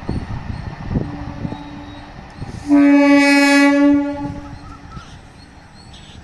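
Train horn: one loud blast on a single pitch lasting over a second, near the middle, which trails off. It follows the fading rumble of a train that has just passed at speed.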